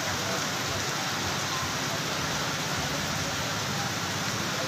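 Heavy rain falling on a street and on standing floodwater, a steady even hiss.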